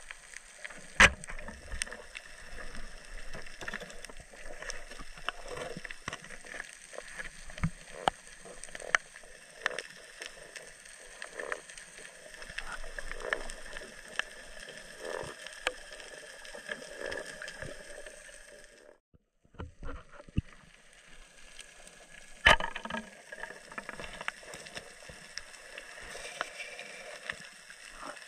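Underwater ambience on a reef at night, heard through the camera: a steady hiss with many scattered clicks and crackles, and a few sharper knocks, one about a second in and another a little past twenty seconds. The sound drops out briefly just before twenty seconds.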